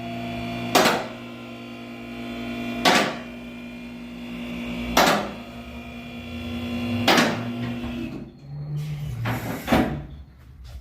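An electric machine humming steadily, with a loud metallic clank about every two seconds; the hum stops about eight seconds in, and a couple more knocks follow.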